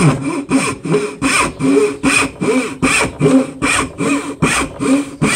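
Veritas dovetail saw, a fine-toothed backsaw, cutting on an angle into a board with quick, even back-and-forth strokes, about three a second.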